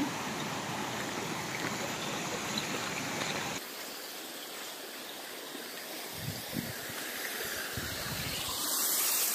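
Steady rushing hiss of water spilling over a small concrete weir and running through a shallow, rocky stream.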